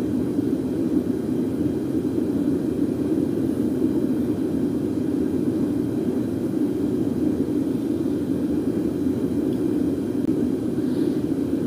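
A steady, even low droning noise with no breaks or changes.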